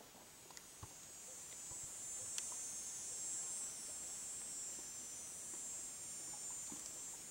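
Insects singing in a steady high-pitched shrill that swells about a second in and fades near the end, with a few faint clicks of handling or footsteps.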